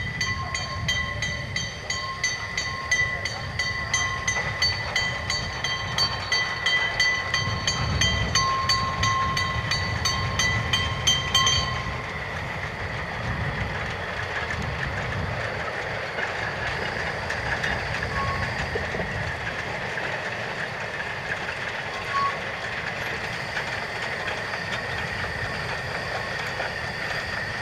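Level-crossing warning bell ringing rapidly, about three strikes a second, until it cuts off abruptly about twelve seconds in. Under it and after it, a narrow-gauge steam train runs past with a steady rumble.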